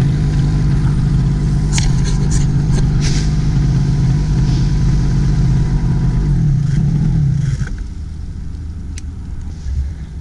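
Miniplane Top 80 paramotor's 80cc single-cylinder two-stroke engine running steadily, then cutting off about eight seconds in, leaving a lower rushing noise.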